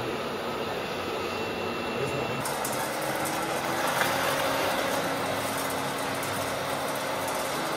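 Radio-controlled model construction vehicles running with a steady mechanical hum, with people talking in the background. The sound changes abruptly about two and a half seconds in.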